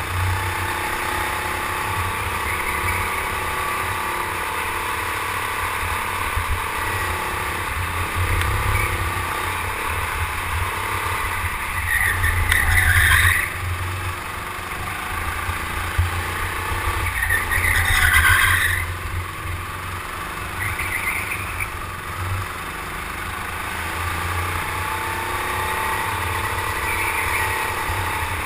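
Go-kart engine running hard under race load, its pitch rising and falling as the kart brakes and accelerates through corners, over a steady low rumble. About halfway through, two louder bursts of tyre squeal a few seconds apart as the kart slides through turns.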